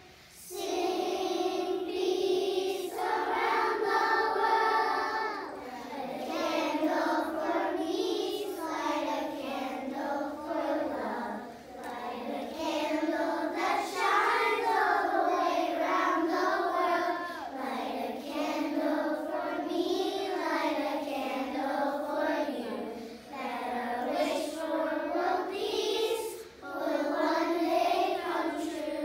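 A class of young children singing a song together in unison, pausing briefly near the end.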